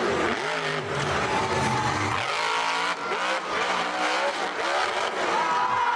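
Monster truck's supercharged V8 revving hard, its pitch sweeping up and down repeatedly as the throttle is worked.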